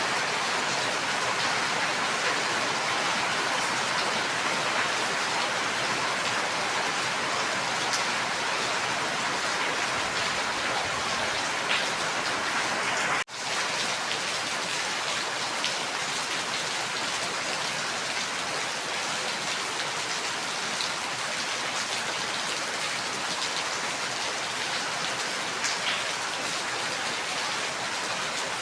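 Steady rain falling, an even hiss with scattered individual drop ticks. It cuts out for an instant about halfway through, then carries on.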